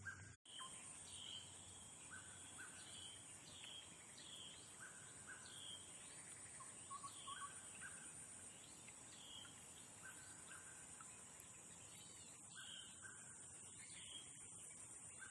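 Faint outdoor ambience: a bird calls over and over in short chirps about once a second, over a steady high-pitched hiss. There is a brief cut to silence about half a second in.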